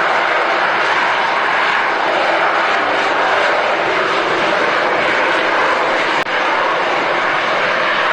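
Jet fighter engine sound effect: a loud, steady roar of jet noise with faint steady tones under it, dropping out for an instant about six seconds in.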